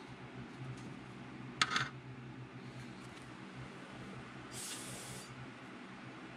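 Two short spray hisses from a can or nozzle. A brief sharp one comes about one and a half seconds in and is the loudest, and a softer, higher hiss lasting under a second comes about four and a half seconds in.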